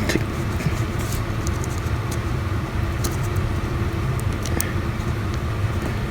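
Small scattered clicks and taps from handling the phone and its battery connector flex, over a steady low background rumble.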